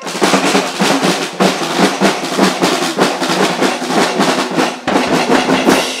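Loud, fast drumming led by a snare drum with bass drum, a dense run of rapid strikes that begins abruptly.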